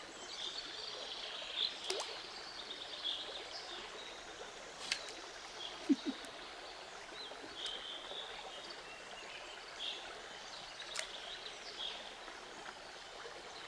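River water flowing steadily. Faint high bird chirps come and go over it, there are a few sharp clicks, and a brief low sound comes about six seconds in.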